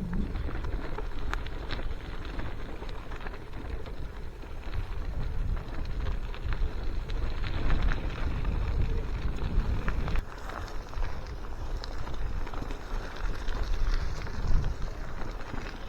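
Gusty wind buffeting the microphone with a low, uneven rumble, over bicycle tyres rolling on a wet trail that give off scattered light crackles.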